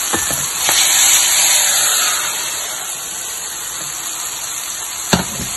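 Hot oil tempering (baghar) of fried spices sizzling as it is poured onto yogurt kadhi; the hiss swells about a second in, then dies down. A sharp knock near the end.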